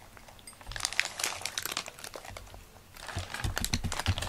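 A cat crunching dry kibble from a bowl: two spells of rapid crunching with a short pause in the middle.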